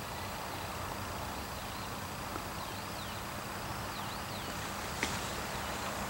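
Quiet outdoor ambience: a steady low hiss, a few faint high wavering chirps, and a single click about five seconds in.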